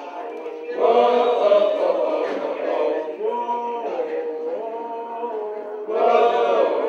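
A group of protesters singing together in unison, holding steady notes. The singing swells louder about a second in and again near the end as new phrases begin.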